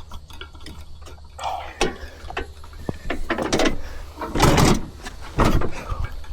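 Irregular knocks, clicks and scraping, with two louder scrapes about four and a half and five and a half seconds in, from handling around a stuck zero-turn mower before its engine is started.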